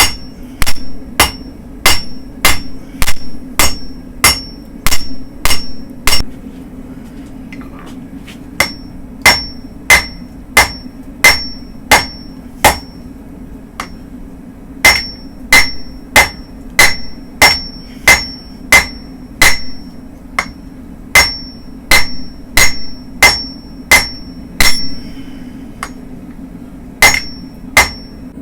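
Blacksmith's hand hammer striking steel on an anvil, forging a dandelion puller from car spring steel. The blows come in runs of about two a second, each one ringing, with short pauses between the runs. A steady low hum runs underneath.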